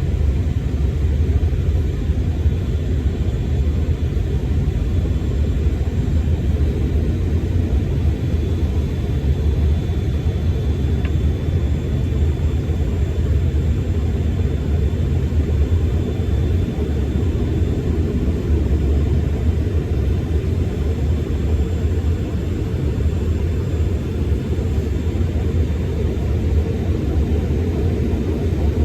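Steady rumble of a Delta CRJ900 airliner in flight after takeoff, heard inside the cabin: its twin rear-mounted turbofan engines and the rushing air make an even, deep drone with a faint high whine above it.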